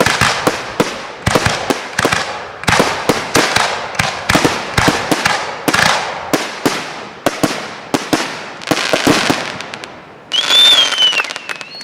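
Aerial fireworks barrage (salute): a rapid series of sharp bangs, each trailing off in crackle. Near the end comes a louder burst with a high, wavering whistle.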